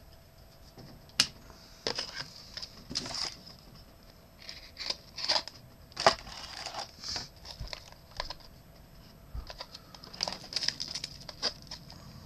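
A small cardboard trading-card pack box being handled and opened by hand: scattered sharp taps and clicks with short bursts of rustling and crinkling.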